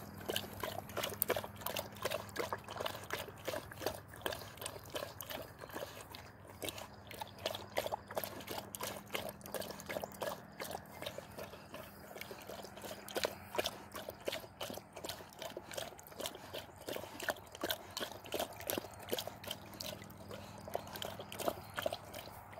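A dog's mouth lapping and splashing in a plastic tub of water as it noses for a ball floating in it: a long run of wet slaps and sloshes, a few a second.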